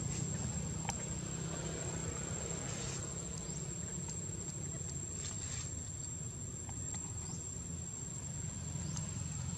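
Insects droning in a steady high-pitched whine, over a steady low rumble of outdoor background noise, with a few faint brief chirps and clicks.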